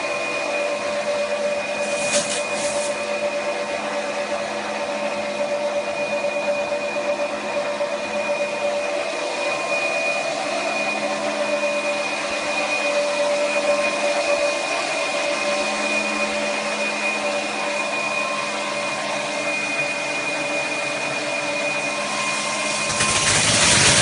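Steady whirring hum of a belt-type optical color sorter for green coffee beans running, several steady tones over an even mechanical whir. A brief hiss comes about two seconds in, and a louder rushing noise comes in near the end.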